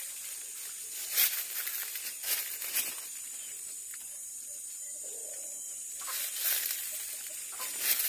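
Leaves rustling and scraping against the phone in short bursts, about a second in, twice more between two and three seconds, and again from about six seconds on, over a steady high hiss.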